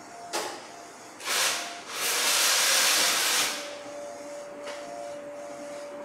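A2 digital inkjet printer running as its print-head carriage sweeps back and forth. There is a short rush of hiss, then a louder hiss lasting about a second and a half, followed by a steady whine.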